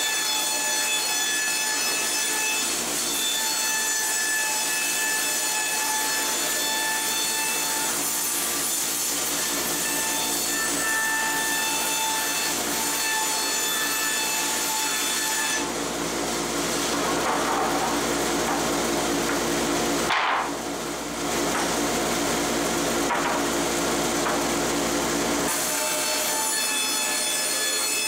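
Hitachi CB75F bandsaw, with a 3-inch, 1-tooth-per-inch blade, ripping rough-sawn white oak boards, along with the steady running of a dust collector and several steady whining tones from the machines. The cutting sound changes in the middle for about ten seconds, with a brief dip around two-thirds of the way through.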